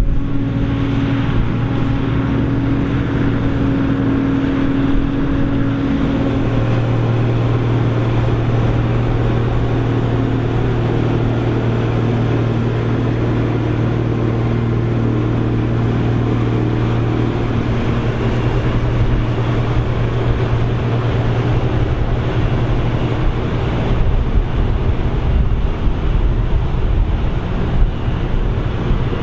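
Krone BigX 700 self-propelled forage harvester running hard under load while chopping corn, a steady heavy diesel drone. A higher steady hum drops out about six seconds in.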